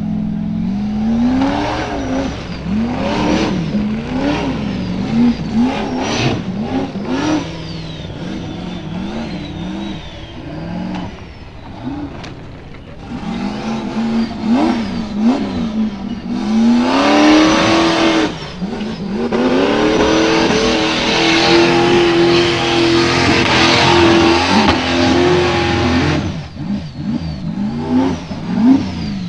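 Formula Offroad buggy's engine revving hard as it climbs a steep dirt hillclimb: quick rises and falls in revs about once a second at first, then held at high revs for several seconds under full load before dropping back near the end.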